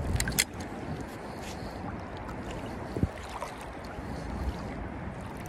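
Steady rush of shallow creek water flowing, with a couple of sharp clicks at the start and a single short knock about three seconds in.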